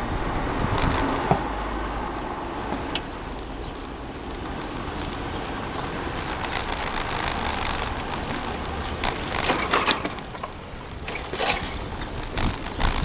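Bicycle ride along a paved path: steady rolling and wind rumble on the microphone, with a few sharp rattling clatters near the end as the bike jolts over the bumps of a crossing.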